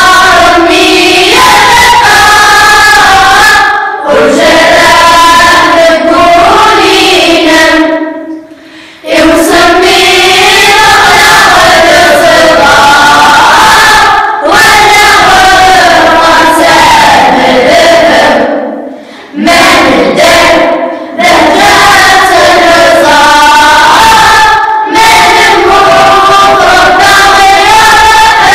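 A children's choir singing together, in phrases separated by short breaks.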